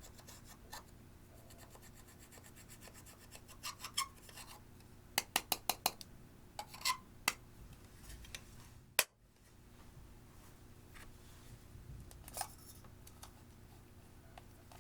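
Eyeshadow being worked into clear slime: faint scratching and rubbing with scattered sharp clicks and pops, including a quick run of about six clicks around the middle.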